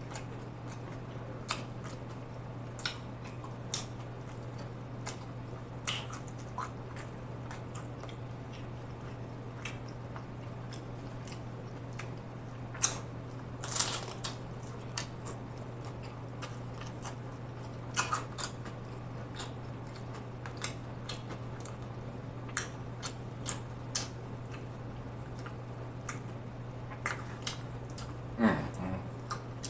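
Close-miked eating of homemade hard-shell beef and steak tacos: scattered sharp crunches as the shells are bitten and broken, with wet chewing between them. The crunches are loudest about midway and near the end, over a steady low hum.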